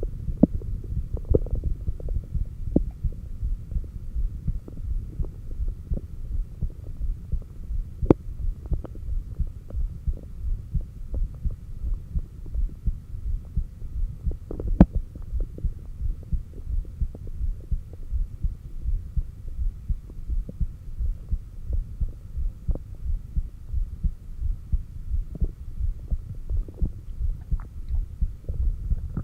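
Heartbeat picked up by a stethoscope on the apex of the chest: steady, regular low beats under a faint hum. Two sharp clicks cut in, about eight seconds in and again near the middle.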